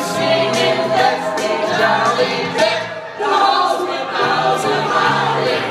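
Several people singing together into microphones over a karaoke backing track, with held bass notes and a steady beat; the sound dips briefly about three seconds in.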